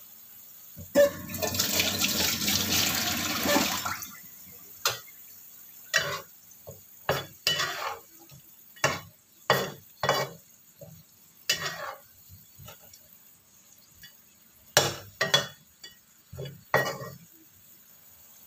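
Liquid poured into a hot wok for about three seconds, then a spatula stirring the wok in a string of short scrapes and knocks against the pan.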